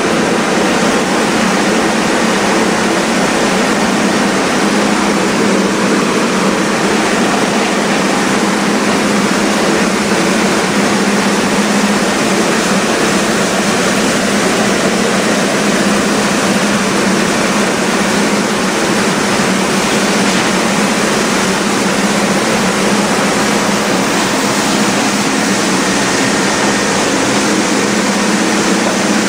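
Optical color sorter running while sorting black beans: a steady, loud machine noise with a constant low hum throughout.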